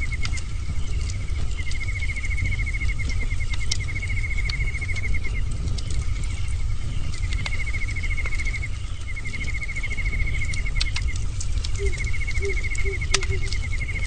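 Bonfire crackling with a steady low rumble and scattered sharp pops. Over it, a wild animal repeats a rapid high-pitched trill in bouts of one to three seconds, and a few short lower calls come near the end.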